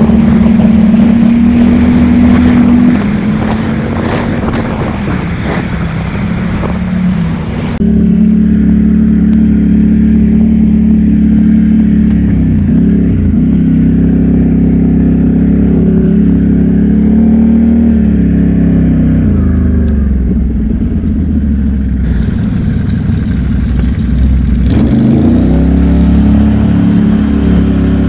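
ATV engine running on the trail, its pitch dropping and climbing back a few times as the throttle is eased off and reapplied. A rushing noise rides over the engine for the first several seconds, then drops away suddenly.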